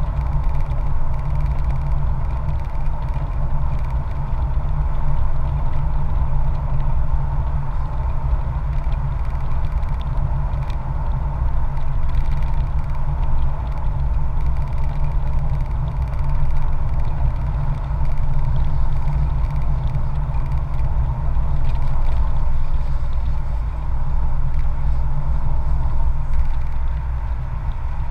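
Steady riding noise from a motorcycle on the move, picked up by a camera mounted on the bike: a low, even rumble of engine and wind with no change in speed.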